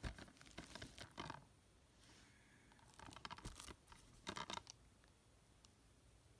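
Plastic wrapping on a DVD case being torn and crinkled, in two short bunches of scratchy tearing noises.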